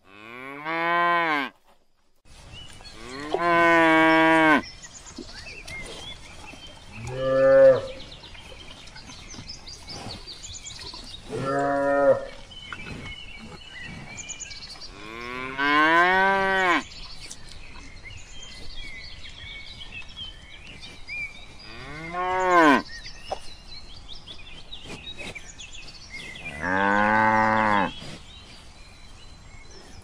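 Cows mooing: about eight separate moos a few seconds apart, each lasting one to two seconds, over a faint steady outdoor background.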